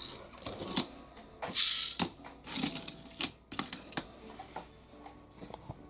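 Die-cast pullback toy car, a green Lamborghini Gallardo LP 570-4 Superleggera, handled on a plastic road mat: a run of small clicks and knocks, with two louder rasping whirrs of its pullback motor winding, about one and a half and two and a half seconds in.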